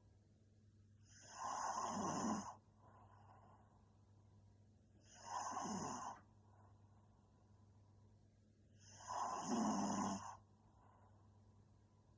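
A young woman snoring in her sleep: three loud snores about four seconds apart, each with a low rattling tone, and quieter breathing between them.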